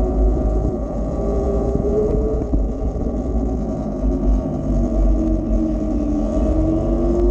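E-Ride Pro SS electric motorbike riding along at street speed: a faint motor whine rises slowly in pitch in the second half. Heavy wind buffeting on the microphone and a road rumble lie under it.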